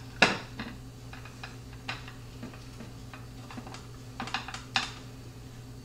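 A plate set down on a wooden counter with a sharp knock, then light clicks and taps as a fajita is handled and lifted out of a stainless steel taco holder. A steady low hum runs underneath.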